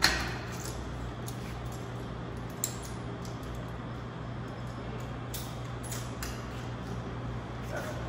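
Steel studs and track being handled during framing: a sharp knock at the start, a smaller knock a couple of seconds later, and a few faint clicks, over a steady low hum.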